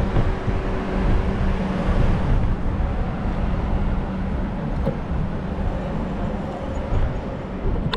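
Street traffic: a vehicle engine running close by with a steady hum, over a low, uneven wind rumble on the microphone.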